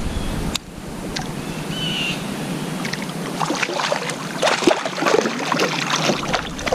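Water splashing and slapping against the side of a kayak: a busy run of irregular splashes in the second half as a hand reaches into the water, with wind rumbling on the microphone at the start.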